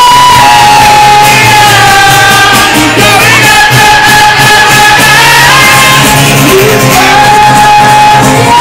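Live covers-band music: a female singer holds long sung notes over guitar and band backing, recorded very loud.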